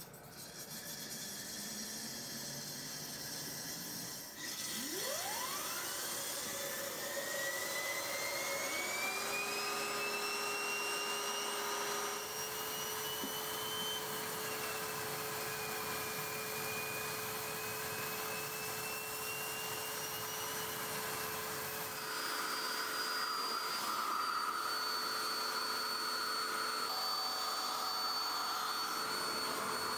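Prototype wood-fired steam boiler being fired: a small blower fan whines as it spins up about four seconds in, then runs steadily over a constant rushing hiss, with steam venting from the boiler.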